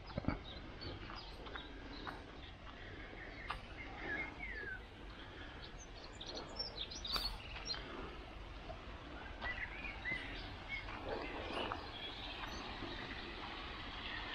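Small birds chirping in the hedgerow: scattered short, high chirps and quick runs of notes over a steady outdoor background, with a denser burst of high notes about halfway through.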